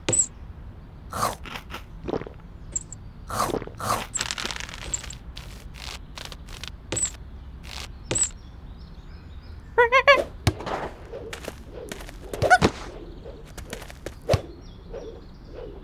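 Cartoon sound effects: a string of short knocks, clicks and pops, with a quick run of repeated rising tones about ten seconds in.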